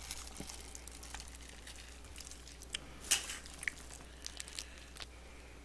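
Quiet eating sounds as a scallop is picked from its shell and eaten: a few sharp little clicks and soft wet mouth noises in the second half, over a low steady hum.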